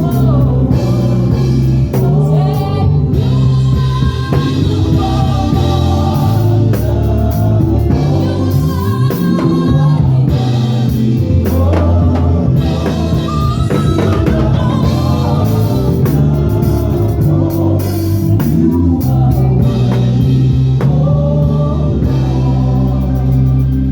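Gospel praise and worship band playing with singing over a heavy bass line and drum kit.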